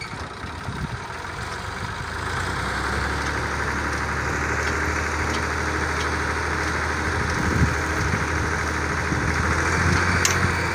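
Diesel engine driving the pump of a newly bored tubewell. It picks up about two seconds in and then runs steadily while the freshly primed pump works to lift water from the bore.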